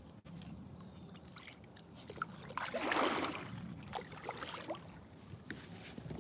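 Kayak paddle strokes in calm water: the blades dip and splash, with the loudest splash about three seconds in and a smaller one soon after, among small drips and clicks.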